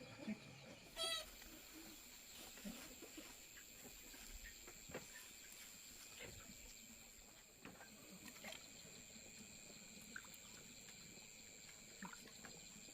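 Quiet rural ambience with one short pitched animal call about a second in, a faint steady high-pitched whine, and scattered small clicks and rustles.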